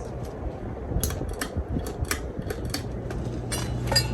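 A run of about a dozen irregular sharp clicks and taps over a low steady hum, the loudest click near the end.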